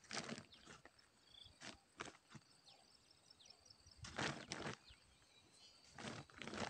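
Short bursts of rustling and scuffing, a few of them about two seconds apart, over a quiet outdoor background with a faint high chirping in the middle.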